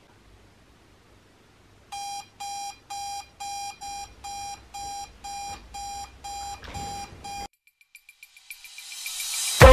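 Digital alarm clock beeping: a steady high beep about twice a second, starting about two seconds in and cut off abruptly some five seconds later. Near the end a noisy whoosh swells in loudness.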